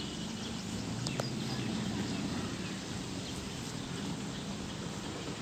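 Steady rain falling, an even, continuous hiss, with a single sharp tap about a second in.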